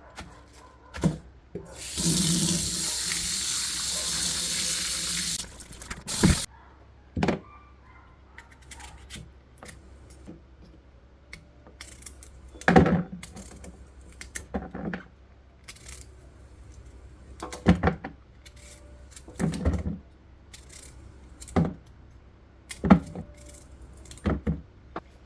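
Kitchen tap running into a sink for about three seconds, cutting off suddenly, followed by a string of separate knocks and clunks spread out over the next twenty seconds.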